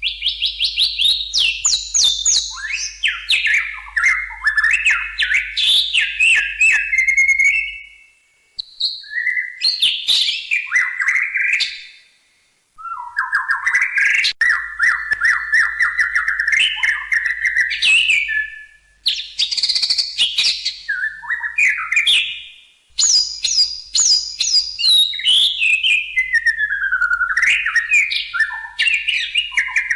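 White-rumped shama (murai batu) singing long, varied phrases of rising and falling whistles and fast chattering note runs, broken by a few short pauses.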